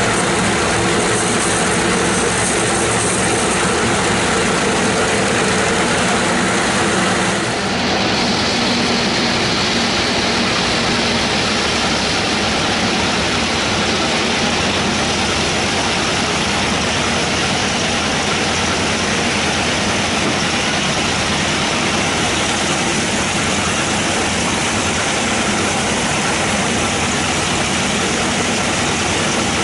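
Sawmill band saw running and cutting lengthwise through a bayur log, a loud, continuous machine noise. About eight seconds in the sound changes abruptly, from a humming run to a brighter, steady hiss of the blade in the wood.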